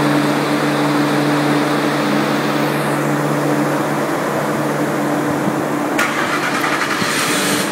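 Supercharged 5.0-litre V8 of an FPV GS idling steadily, heard close up from the open engine bay. A rushing hiss joins about six seconds in.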